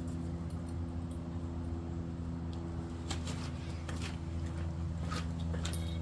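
Scattered light clicks and rattles of truck-bed tent strap hooks and buckles being handled, over a steady low hum.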